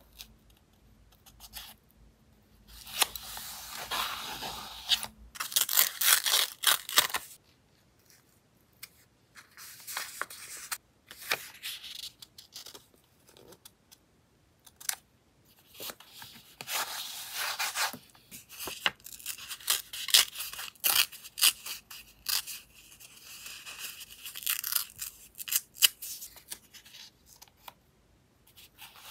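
Paper scraps being torn and rustled, with metal tweezers clicking and pressing the pieces onto a journal page. It comes in irregular bursts of crackly handling noise, with short quiet gaps between them.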